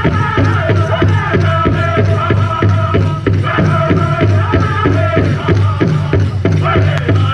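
Powwow drum group playing a chicken dance song: voices singing in unison over a fast, steady beat on a large powwow drum.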